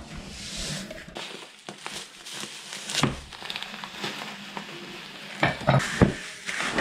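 Dry grits and then panko breadcrumbs pouring into a plastic bucket of oats with a steady grainy hiss and some crinkling of the crumb bag, followed near the end by a hand working the dry mix in the bucket with a few thumps.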